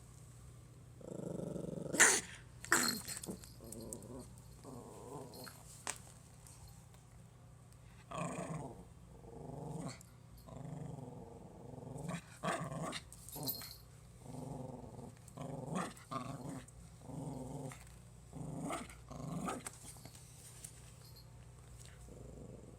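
Pomeranian puppy growling in repeated short bouts, broken by a few sharp barks, the loudest about two seconds in.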